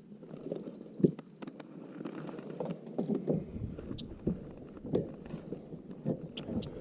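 Irregular light knocks and clatter on a kayak while a freshly caught smallmouth bass is handled, with one sharper knock about a second in.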